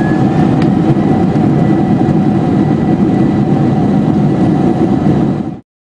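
Jet engines starting up and running: a loud steady rumble with a whine that rises and then holds at one pitch. It cuts off suddenly near the end.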